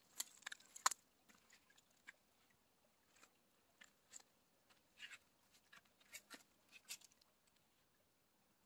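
Faint, scattered crackling and rustling of dry grass and brush being stepped through, with a cluster of louder crackles in the first second and stopping about seven seconds in.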